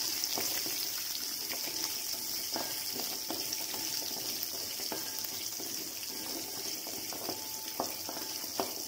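Shallots and whole spices sizzling in hot oil in a kadai, a steady hiss with scattered light knocks of a wooden spatula stirring against the pan.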